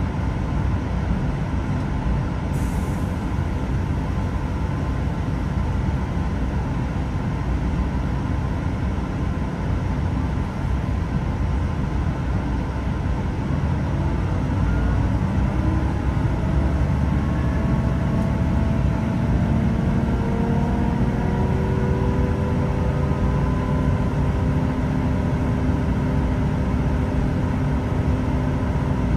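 Class 166 diesel multiple unit heard from inside the carriage: a steady low engine and running rumble, with a short hiss about two and a half seconds in. From about halfway through, several whining tones rise slowly in pitch as the train picks up speed.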